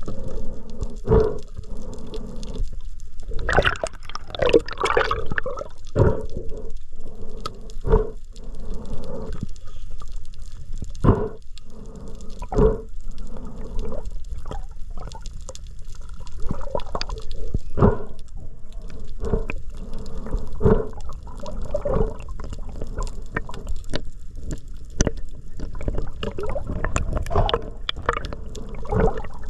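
Water sloshing and gurgling, with irregular splashes every second or two.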